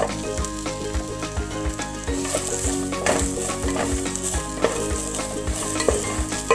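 Crushed garlic cloves sizzling in sesame oil in a metal pan, being dry-roasted until well browned, with a wooden spatula scraping and knocking against the pan a few times a second. Faint background music with held notes underneath.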